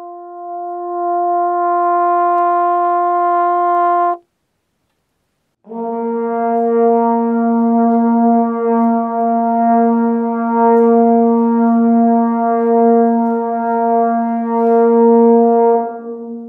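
Trombone holding one long note in a dead, anechoic room while the player turns on the spot; the note dips and swells, then cuts off abruptly about four seconds in. After a short silence comes a lower held trombone note in a reverberant room, which stays fairly even in level and dies away with a reverberant tail near the end.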